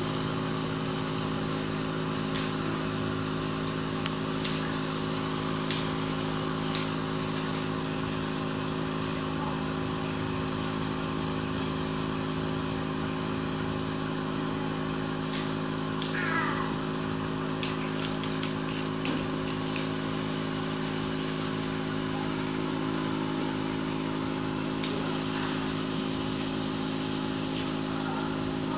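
Steady mechanical hum of an aquarium air pump running, with the fizz of its bubble stream and scattered faint clicks; a short falling squeak about halfway through.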